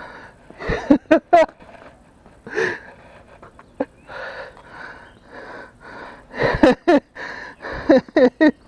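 A man breathing hard in a run of heavy breaths about half a second apart, with short wordless vocal sounds near the start and again near the end.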